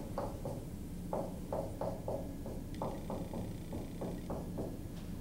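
Dry-erase marker squeaking on a whiteboard in a quick series of about fifteen short strokes as letters and bond lines are written.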